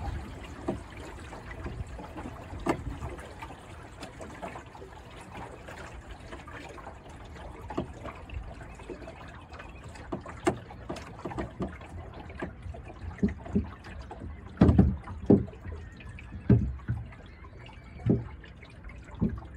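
Small waves lapping and slapping against the hull of an Ilur sailing dinghy under way, with a steady gurgle of water along the side and irregular sharper slaps. A run of louder slaps comes in the last third.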